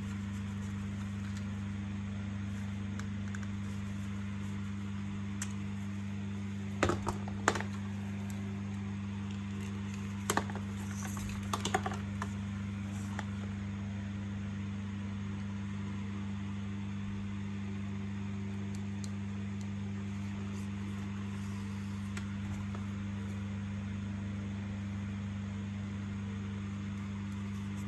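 A steady low hum with a handful of sharp clicks and taps about a quarter to halfway in, like small parts being handled.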